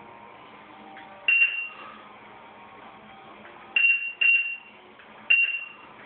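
Proliner 3D digitizer beeping four times, each a short high beep that marks a point being recorded as the stylus is touched to the cabinet and wall.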